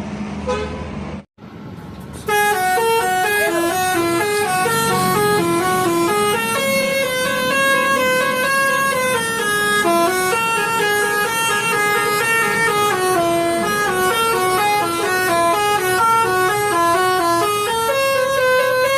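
Bus telolet horn playing a long melody of short stepping notes, starting about two seconds in after a brief cut. Before the cut, a moment of traffic noise.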